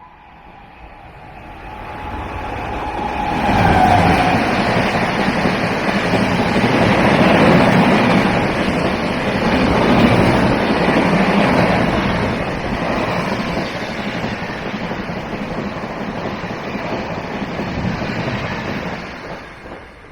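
Express train passing at high speed: the rush of wheels on rail builds over the first few seconds, stays loud for about fifteen seconds, and dies away near the end.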